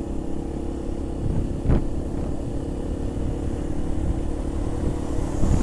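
Keeway RKV 125's single-cylinder 125cc engine running steadily under way at low, unchanging revs, as it is being run in, with wind and road noise. A brief thump about a second and a half in, and the sound gets louder near the end.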